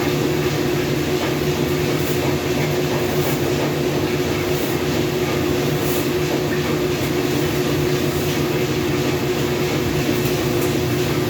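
Washing machine running loudly with a steady hum and rumble.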